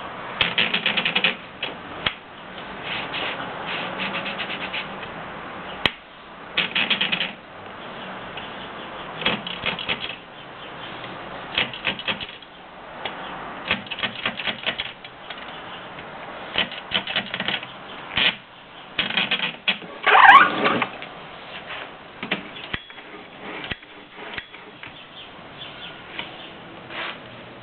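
Typewriter typing: runs of rapid key strikes with short pauses between them, and a louder burst about twenty seconds in.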